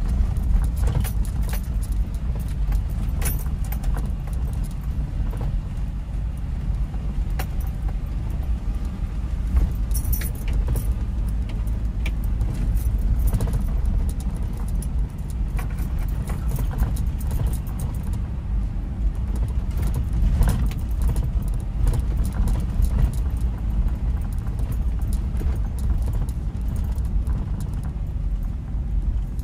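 Car driving up a road, heard from inside: a steady low road and engine rumble with frequent light clicks and jingling rattles.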